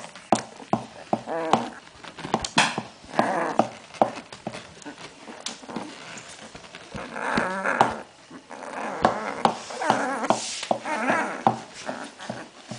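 Vizsla puppies about two weeks old squeaking and whining in short wavering cries while they suckle at their dam, over many quick wet clicks of suckling.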